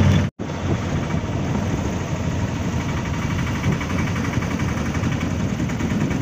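Steady din of road traffic and idling engines, heavy and uneven in the low end, starting just after a brief cut-out.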